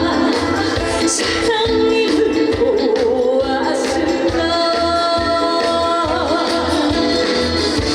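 Trot song performed live: a woman's voice singing held, wavering notes over an accompaniment with a steady beat.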